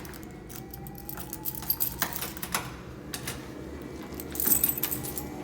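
A bunch of keys jangling and clicking as the stairwell master key is handled, with a louder jingle about four and a half seconds in.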